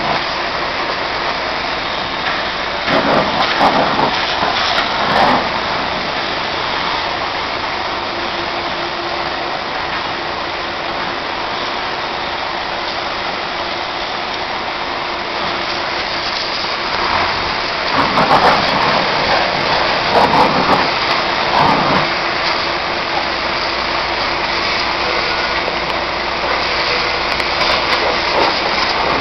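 Cleantec Quiky 10 100 high-pressure washer running, its water jet hissing against a backhoe loader's tyre and bodywork, with a steady hum underneath. The spray grows louder twice, for a few seconds each time, once near the start and again past the middle.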